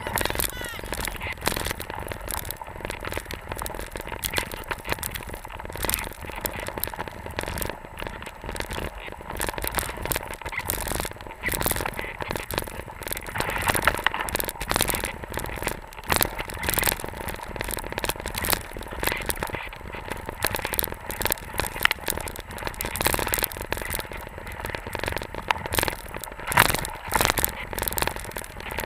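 Skis sliding through deep powder snow behind a running dog team: a continuous rough scraping and crackling, dense with sharp ticks.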